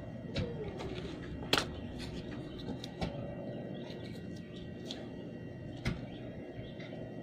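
Scattered light clicks and taps from handling a hot glue gun and wooden popsicle sticks, the sharpest about a second and a half in, over a steady background hum.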